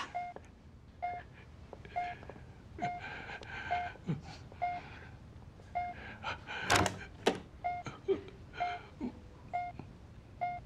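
Bedside patient monitor beeping its pulse tone, a short beep about once a second. Light knocks and scuffs occur in the room, with a louder thump a little past halfway.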